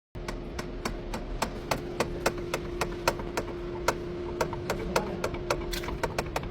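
Sharp knocks repeated two to three times a second, unevenly spaced, over a steady hum.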